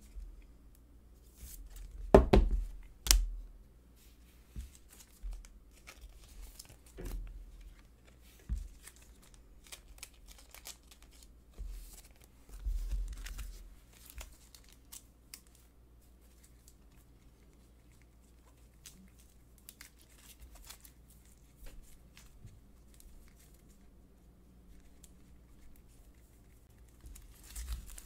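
Hands handling a stack of plastic-sleeved trading cards on a table: crinkling and rustling of the sleeves with scattered taps and clicks, and a couple of louder knocks about two to three seconds in.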